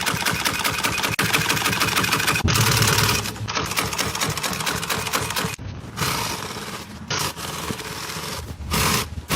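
Sewing machine stitching upholstery pieces at a fast, even rate. It runs in several spurts separated by short stops.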